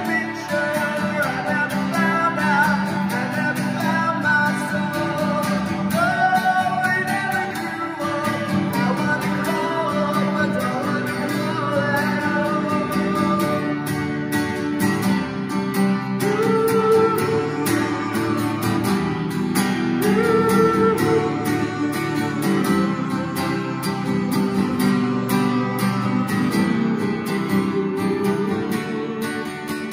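Acoustic guitar strummed and picked, chords ringing under a wandering melodic line, drawn out by the long echoing reverb of a concrete parking garage.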